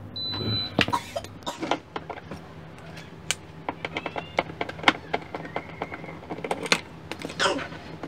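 Young Ma rice cooker's error buzzer giving one short, high beep: the E2 error alarm, a sign of a sensor fault such as a short or a broken wire. It is followed by a run of sharp clicks and knocks of the cooker being handled.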